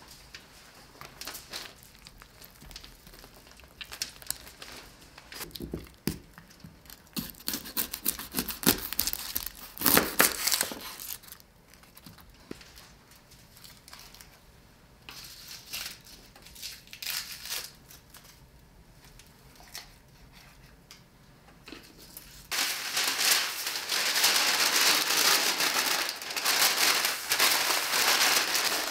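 Brown baking paper crinkling and rustling loudly and continuously as it is folded around a tied rack of raw beef ribs, starting abruptly about two-thirds of the way in. Before that, only scattered light clicks and rustles of handling.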